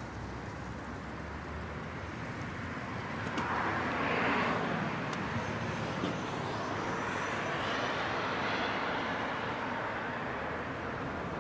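Outdoor traffic noise: passing vehicles swell up about three and a half seconds in and again in the second half, over a steady low rumble.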